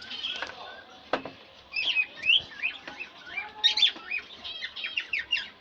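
Small birds chirping: many quick rising and falling chirps in rapid series, thickest in the second half, with a sharp knock about a second in.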